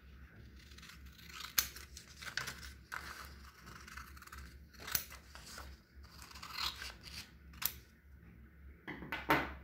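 Scissors cutting through a sheet of paper in a series of irregular snips, cutting off a long paper strip.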